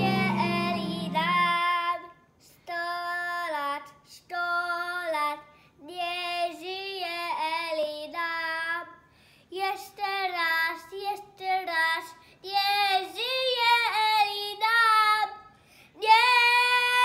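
A young boy singing unaccompanied, line by line with short breaths between phrases. In the first second and a half, the last notes of recorded string music end under his voice.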